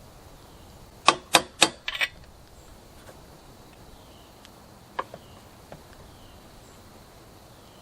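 Four sharp taps in quick succession about a second in, then a couple of faint ticks: a new crankshaft seal being tapped into a Husqvarna 372 chainsaw crankcase a little at a time on each side.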